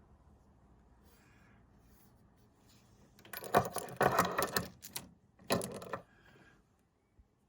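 Faint steady mains hum from a Naim NAC152 preamp and NAP200 power amp clone just after switch-on, then two bursts of loud rattling clatter about three and a half and five and a half seconds in, after which the hum is gone.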